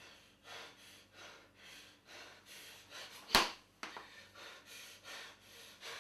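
A man breathing hard in quick, repeated pants during a physical struggle, with one sharp smack a little over three seconds in.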